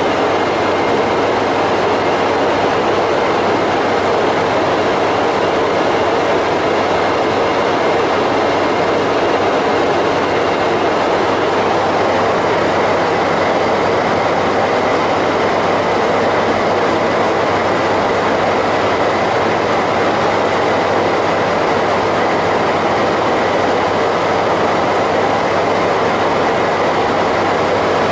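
Steady flight-deck noise of a Boeing 747-400 climbing after take-off: an even rush of airflow and engine noise with a few faint steady hums, unchanging throughout.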